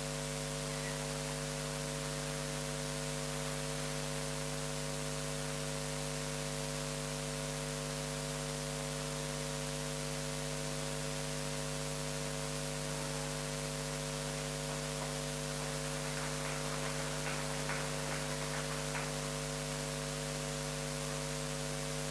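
Steady electrical mains hum with a faint hiss, even and unchanging throughout.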